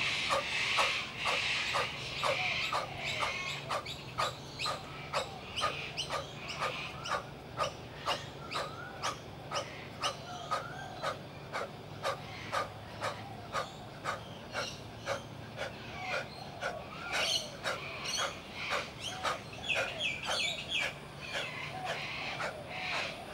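Quick, forceful breaths from a man doing push-ups at full speed, sharp and evenly spaced at about two a second.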